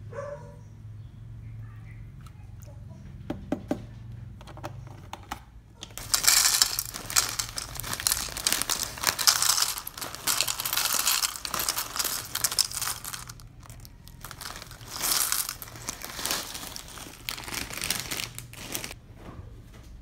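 Plastic cereal bag crinkling as chocolate cereal is poured from it into a ceramic bowl: a loud dry rustling rush starting about six seconds in, a short pause, then a second, shorter pour.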